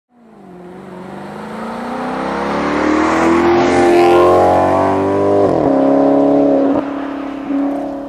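Car engine revving up, its pitch rising steadily and growing louder to a peak about four seconds in, then dropping sharply at about five and a half seconds and again near seven seconds.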